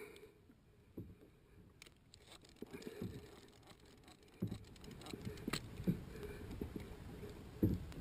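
Faint water sloshing and lapping around a kayak, with scattered small knocks against the hull; it gets busier about halfway through.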